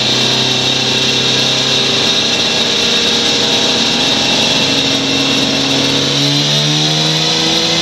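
Suzuki RG500 Gamma's two-stroke square-four engine running on a dynamometer, holding steady revs, then rising gradually in pitch from about six seconds in as the revs climb. A steady high whine runs underneath.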